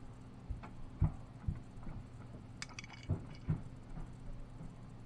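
A few scattered light clicks and soft knocks from a hand crimping tool and small crimp connectors being handled, over a faint low hum.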